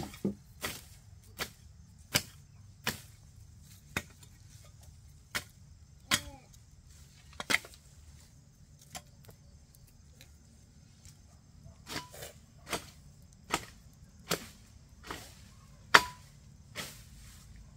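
A series of sharp knocks at uneven intervals, roughly one a second, with a pause of a few seconds about halfway through.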